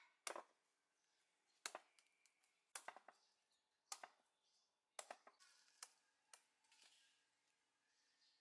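Meat cleaver chopping into the fibrous husk of a green coconut: about eight sharp strikes at irregular intervals of roughly a second, some coming in quick pairs.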